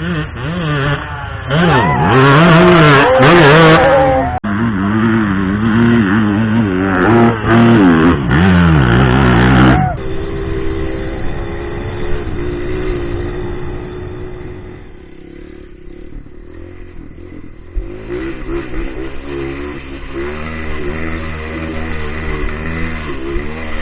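Single-cylinder four-stroke trail bikes revving hard on a hill climb, the engine pitch rising and falling as the throttle is worked. Loudest over the first ten seconds, with two abrupt changes there, then quieter running before hard revving returns for the last several seconds.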